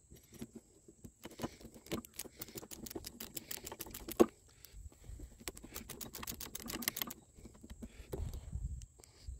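Rapid light clicking and ticking of a screwdriver turning screws and of small metal parts being handled on a lawn mower's self-propelled drive bracket, with one sharper click about four seconds in. The clicking stops about seven seconds in.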